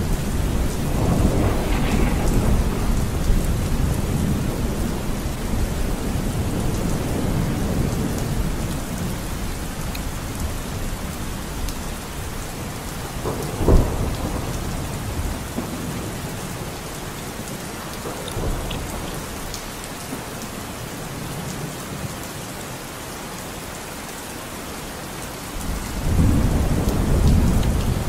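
Steady rain falling, with low rumbles that swell early on and again near the end, and one short sharp thump about fourteen seconds in.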